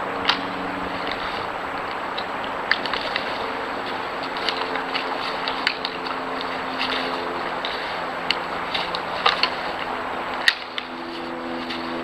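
Antlers of sparring white-tailed bucks clicking and clacking together in short, irregular knocks, over a steady low hum and hiss.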